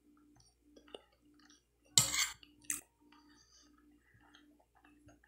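Metal spoon clinking and scraping against a glass plate while scooping food, loudest about two seconds in with a second short clink just after; small scattered clicks otherwise.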